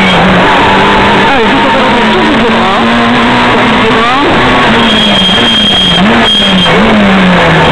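Onboard sound of a Peugeot 106 S16 rally car's 1.6-litre 16-valve four-cylinder engine driven hard, over road and wind noise. Its note holds, climbs through the revs, then drops and jumps several times in the second half at gear changes.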